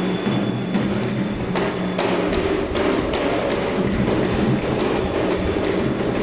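Live Sri Lankan folk drumming on a double-headed barrel drum, struck by hand in a fast, dense rhythm, with a bright jingling shimmer over the strokes.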